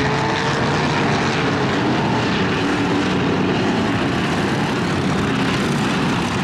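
Engines of several demolition-race pickup trucks running together in a loud, steady drone, their pitch rising and falling a little as the drivers work the throttle.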